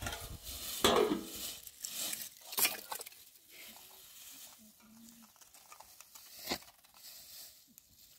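A plastic bag rustling loudly twice, with a pan of food stirred and sizzling over an open fire; a sharp click about six and a half seconds in.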